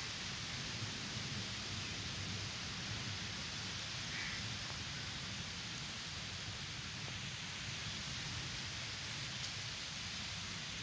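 Strong wind rushing through trees and bushes, a steady hiss of blown leaves with a low rumble of wind on the microphone.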